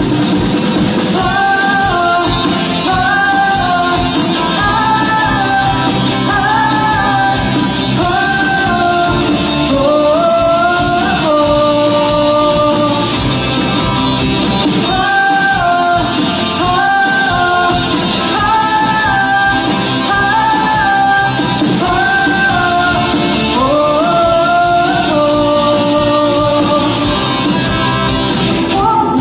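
A woman singing a melody with a rock band backing her on guitar; the vocal comes in about a second in after the instrumental opening.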